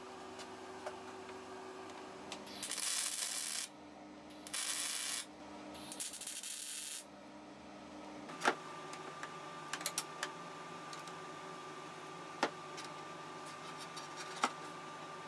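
Three short bursts of MIG welding, each about a second of steady hiss, tacking the steel angle-iron frame. A few sharp metal clinks follow over a faint steady hum.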